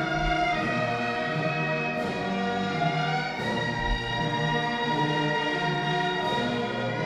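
Orchestral music: sustained chords that shift every second or so, with deep low thumps near the start and about four seconds in.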